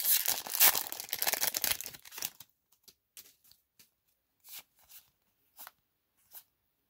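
Foil booster pack wrapper crinkling and tearing as it is pulled open, for about two seconds. Then a few soft, separate flicks of trading cards being slid apart in the hands.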